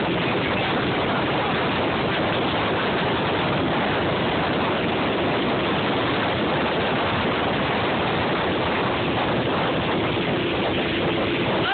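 Steady rush of wind and water aboard a motorboat under way, towing a wakeboarder.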